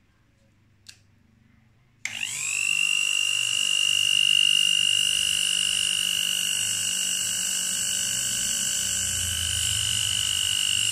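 A 220 V AC hand grinder's motor is switched on about two seconds in, spins up within half a second and runs at a steady high whine. It has a rough sound, which the owner sets out to cure by redoing its wiring.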